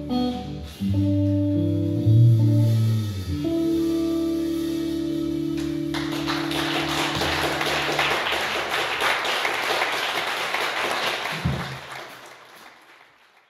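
Electric guitar and baritone fretless guitar ringing out on the last held chords of a tune. Audience applause starts about six seconds in and dies away near the end.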